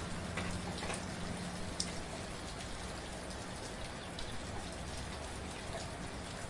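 Steady soft rain falling, an even hiss with individual drops striking a surface every so often.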